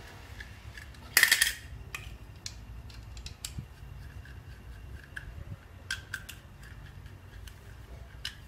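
Metal parts of a hand-pushed rolling seed planter clicking and clinking as they are handled during assembly, with one louder rattling scrape about a second in and scattered light clicks after it.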